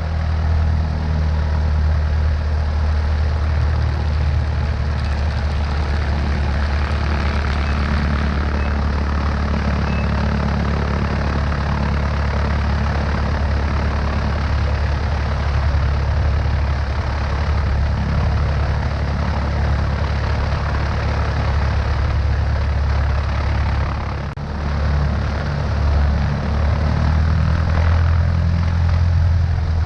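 Cessna 152's four-cylinder Lycoming engine and propeller running steadily, heard from a camera mounted outside on the wing, with the engine note under a steady rush of air noise. The sound dips briefly about 24 seconds in.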